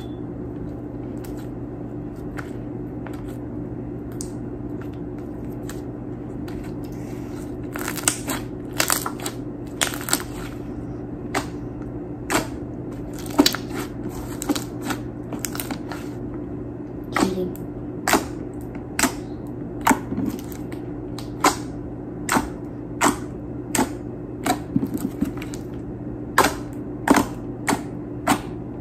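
Pink slime being squished and pressed by hand on a tabletop, giving short sharp pops and clicks as trapped air bursts: scattered at first, then about one a second through the second half. A steady low hum sits underneath.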